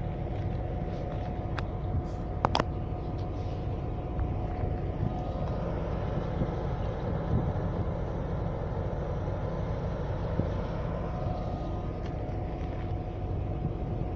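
Diesel locomotive engine idling, a steady low drone with a constant hum. A couple of sharp clicks about two and a half seconds in.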